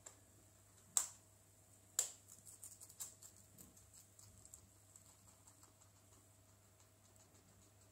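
Guinea pig nibbling a green stalk held in fingers: two sharp crisp clicks about a second apart, then a run of fainter quick ticks that die away.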